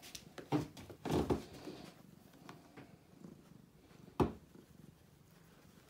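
Oriental cat purring steadily while being stroked, with a few brief noises in the first second and a half and a single sharp knock about four seconds in.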